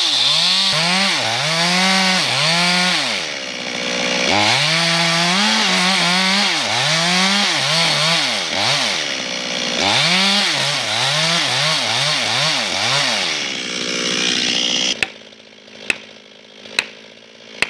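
Chainsaw cutting into a large tree trunk, its engine speed rising and falling about once a second as it bites into the wood. Near the end the saw stops and a sledgehammer strikes a felling wedge in the cut, sharp blows about a second apart.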